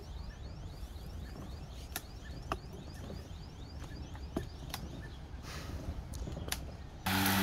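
EGO 56-volt brushless cordless lawn mower running while cutting grass: a low, steady hum with a few light clicks. Near the end the motor hum suddenly becomes much louder, with a steady low pitch.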